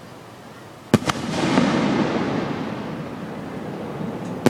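Aerial fireworks shells bursting: two sharp bangs in quick succession about a second in, followed by a long rumbling tail that slowly fades, and another sharp bang at the very end.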